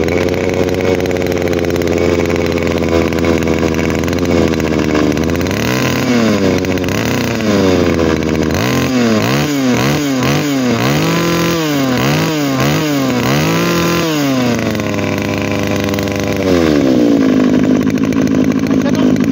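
26cc, 34 mm bore two-stroke brush cutter engine running. It idles steadily for a few seconds, then is revved up and down in about eight quick throttle blips, then held at a steady, louder speed near the end.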